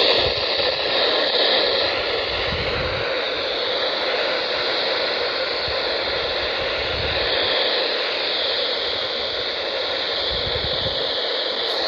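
Weather radio receiver hissing steady static between broadcasts, with no signal coming through. A faint steady whistle sits in the hiss for the first two or three seconds.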